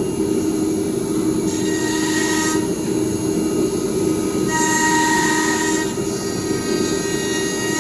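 ATC CNC router spindle cutting a wooden panel as the gantry moves, over a steady machine drone. Twice, at about two seconds and again about five seconds in, a higher whine with a hiss rises over the drone for a second or so.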